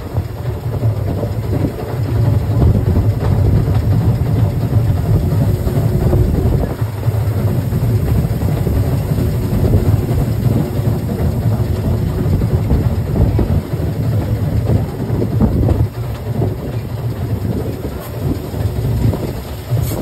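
Steam-hauled narrow-gauge train running along the line, heard from a coach: a steady low rumble of wheels on the rails with irregular small knocks.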